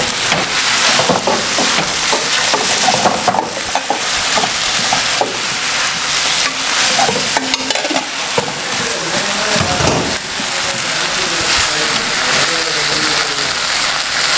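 Chopped onions sizzling in oil in a nonstick frying pan on a gas hob, stirred with a wooden spatula that scrapes and taps against the pan.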